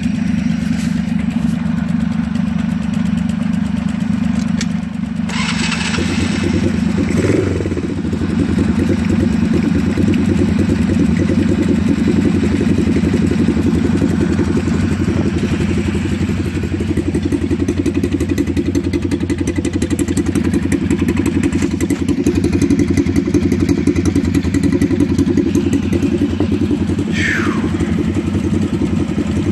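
A four-wheeler ATV engine runs steadily in the cold. From about five seconds in its note picks up and turns rougher and fuller. A short falling squeak comes near the end.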